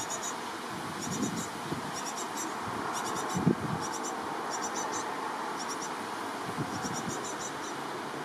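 Young great tits at a nest box giving high, thin calls in quick clusters of two to four, repeated about every second, over a steady background hiss. A soft thump about three and a half seconds in is the loudest moment.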